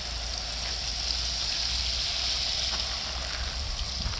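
Water spraying steadily from a watering can's rose and pattering onto potted succulents, a continuous high hiss.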